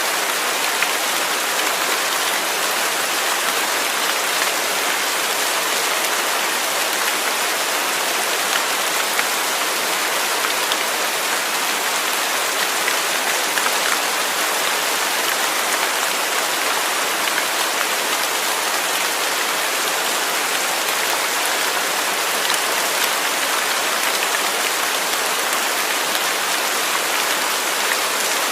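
Steady rain falling, a dense even patter of drops on a surface with no thunder.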